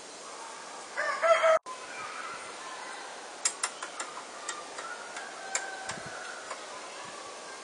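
A chicken calls loudly about a second in and is cut off abruptly half a second later. Afterwards a few scattered sharp clicks sound over a steady outdoor hiss.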